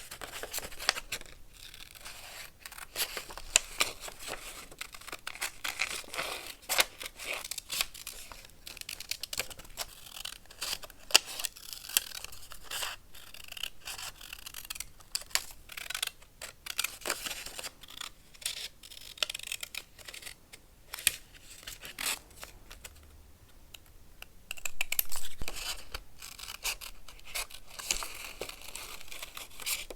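Vintage paper handled close up, cut and torn: many short, crisp rustles and snips, with a louder, longer stretch of rustling about 25 seconds in.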